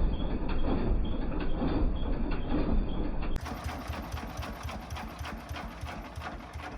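Single-cylinder diesel engine of a công nông farm truck chugging with a rapid, even knock. About three seconds in, the sound cuts to a quieter, clearer recording of the same chugging.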